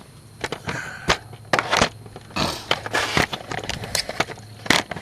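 Metal hand tools clinking and scraping: a socket and wrench being picked out and fitted, a series of irregular sharp clicks and knocks.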